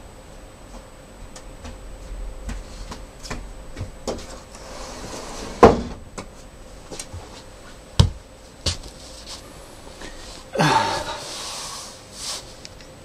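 Someone moving about a small room: scattered clicks and knocks, with two sharp bangs like a cupboard or door about six and eight seconds in. Near the end comes a second or so of rustling, as of cloth or a bag being handled close by.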